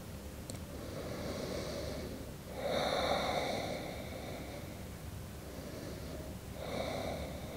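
A woman breathing slowly: soft breaths about a second in, a louder breath around three seconds in, and another near the end.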